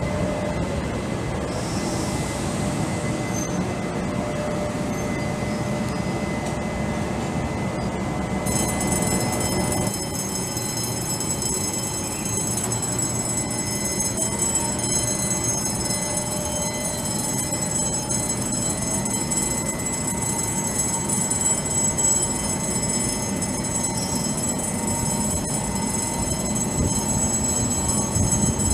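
Orange Taiwan Railways electric locomotive hauling a passenger train slowly along a station platform and coming to a stand, with a steady low rumble of wheels and running gear. About eight seconds in, a steady high-pitched whine joins it and carries on.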